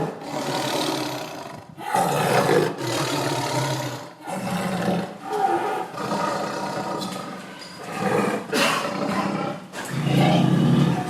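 Tiger roaring and growling, a run of rough, loud roars one to two seconds long, following each other with short breaks.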